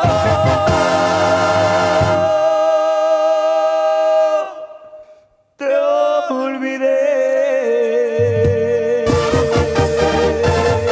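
Banda sinaloense music: a song closes on long held notes that fade out about five seconds in. After a brief gap the next song opens on held notes, and the full band with its bass comes in about nine seconds in.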